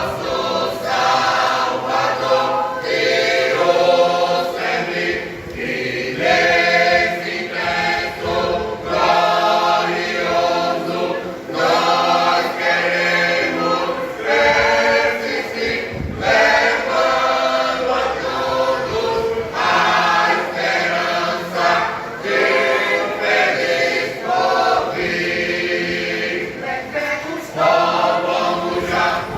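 Church choir singing a gospel hymn, continuous phrases of mixed voices.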